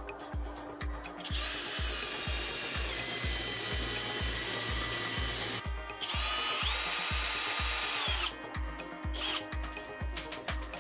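Vikhr cordless drill running with an adjustable circle cutter fitted, in two steady runs of a few seconds each with a motor whine, speeding up at the start of the second run. Background music with a steady beat underneath.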